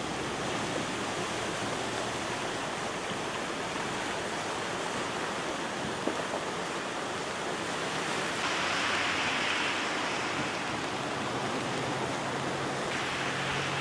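Muddy flood water rushing fast down a river that has burst its banks: a steady, noisy rush that swells a little louder for a moment past the middle.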